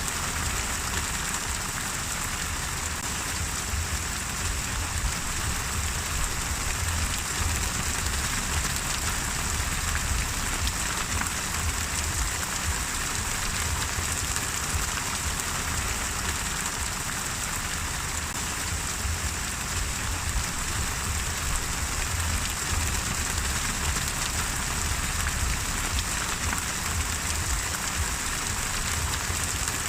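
Steady rain falling: an even, unbroken hiss of many fine drops with a low rumble underneath.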